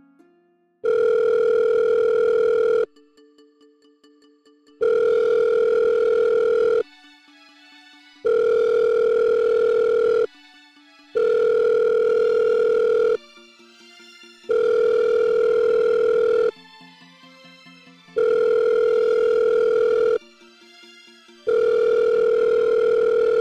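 A telephone ringing: seven rings of about two seconds each, a steady buzzing tone with short pauses between, the line going unanswered. Soft music plays quietly under the rings.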